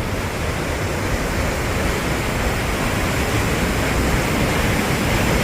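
Sol Duc Falls, a waterfall that drops in several channels, rushing in a steady wash of falling water that grows slightly louder.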